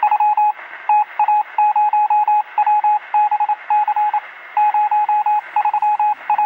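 Morse code: a single steady beeping tone keyed on and off in short and long pulses over a radio-like hiss.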